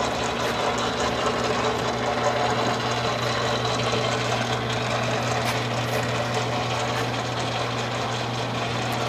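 Sheldon No. 0 horizontal milling machine running in back gear at slow spindle speed: a steady mechanical whir of the motor and gear train over a constant low hum.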